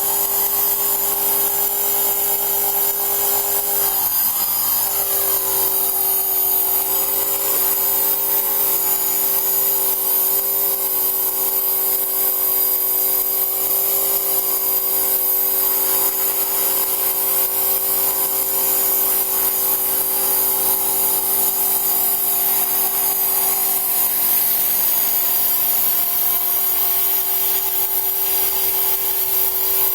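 An aircraft's motor and propeller running steadily in flight, with a steady high whine above it. The pitch shifts briefly about four to seven seconds in, as with a change of throttle.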